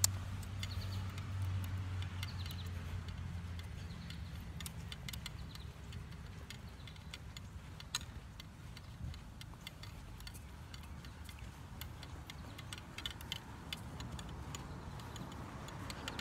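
Walking outdoors: scattered light clicks and ticks from footsteps and carried gear, with the rustle of handling on the microphone. A low steady hum is there for the first four seconds or so, then fades.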